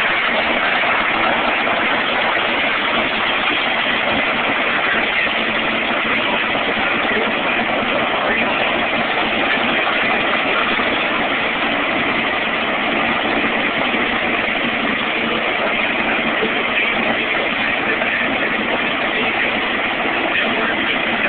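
Supercharged nitromethane-burning Top Fuel dragster engines idling, a loud, steady, rough running with no revs or launches.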